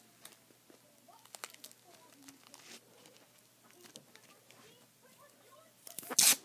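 Faint rustling and small clicks of fingers handling paper and tape. Near the end, a loud brief scrape as a hand brushes across the recording phone.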